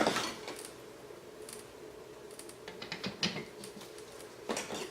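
Scattered small plastic clicks and knocks from propellers being taken off and refitted on a racing quadcopter's motors.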